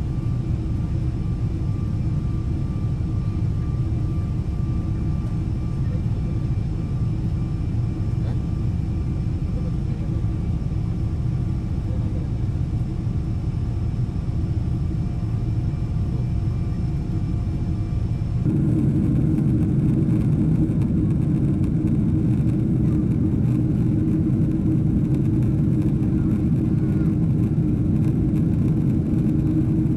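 Steady in-flight cabin noise of a Boeing 777-300ER: a low, even rumble of engines and airflow, with a few faint steady whines in the first part. About two-thirds of the way through, the noise changes abruptly and becomes slightly louder.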